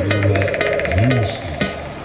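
Electronic music played loud through a pair of DAT DX122 active speakers, with a deep bass line that swoops up and back down about a second in under quick repeating synth notes.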